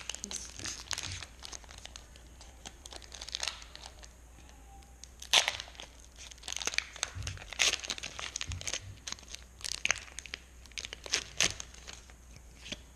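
Foil wrapper of a Pokémon trading card booster pack crinkling and being torn open in the hands, irregular sharp crackles with the loudest snap about five seconds in.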